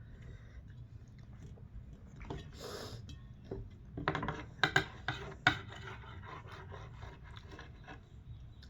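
Dishes and cutlery clinking and scraping at a meal, with a cluster of sharp clinks about four to five and a half seconds in, over a steady low hum.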